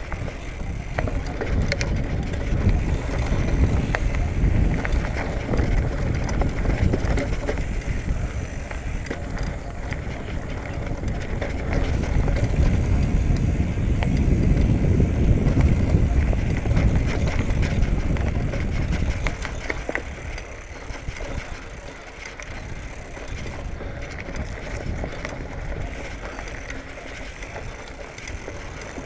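2019 Marin Bobcat Trail 5 hardtail mountain bike riding fast down a dirt singletrack: tyres rumbling over the ground with constant clicks and rattles from the bike, louder for most of the run and easing off after about twenty seconds.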